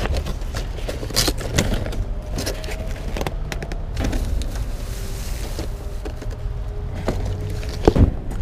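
Rummaging in a dumpster: plastic trash bags rustling and cardboard boxes scraping and knocking, with a sharp knock near the end as a large toy box is handled. A steady low rumble lies underneath.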